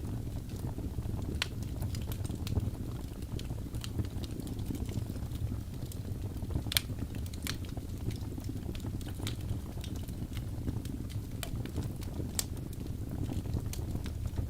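Wood fire burning in a fireplace: a steady low rumble of flames with scattered sharp crackles and pops, two of them louder, one near the middle and one later on.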